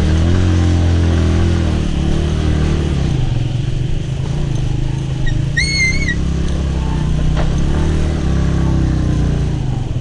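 Motorcycle engine running as the bike is ridden over a rough, rocky dirt track, its note shifting about two seconds in and again later. A brief high whistle-like tone sounds once about six seconds in.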